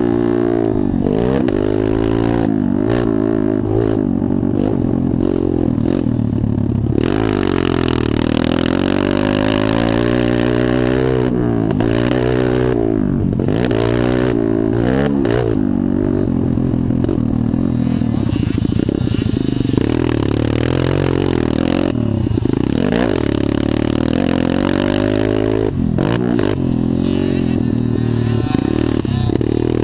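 Motocross dirt bike engine heard from on board, revving up and dropping off again and again as the rider accelerates down straights and backs off for jumps and corners.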